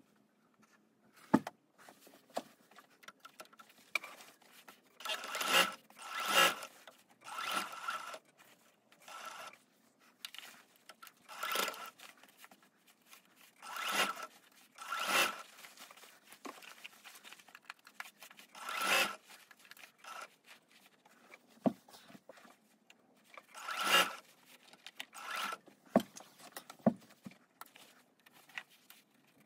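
Silk mawata tsumugi kimono fabric rustling and rubbing in irregular swishes as it is pinned and handled, with a few small sharp clicks in between.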